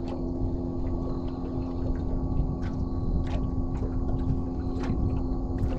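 Steady hum of a fishing boat's motor, two constant low tones over a low rumble, with a few faint clicks.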